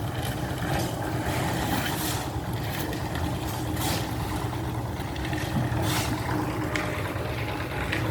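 An engine running steadily with a low hum, with scattered short clicks and knocks over it.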